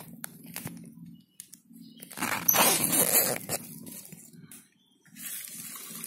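Plastic wrapping rustling and crinkling as it is pulled off a shipped bird cage, loudest for about a second and a half in the middle, with a few light clicks in the first second or so.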